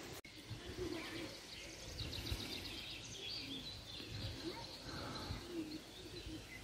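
Faint outdoor ambience: a few birds chirping and trilling over a low rumble of wind.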